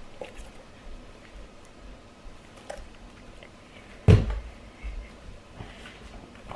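Kitchen handling sounds at a countertop: a few light clicks and knocks, and one loud, sharp thump about four seconds in, followed by a couple of softer knocks.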